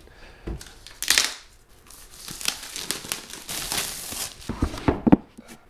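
Plastic shrink wrap being torn and peeled off a laptop's cardboard box: a sharp rip about a second in, then a long stretch of crinkling as the film is pulled away, and a few short knocks near the end.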